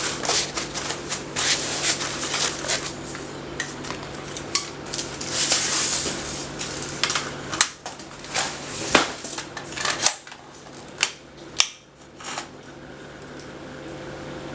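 Full-metal JG HK416 airsoft rifle being handled: irregular metallic clicks and rattles of its metal parts, with a few sharper clicks in the second half.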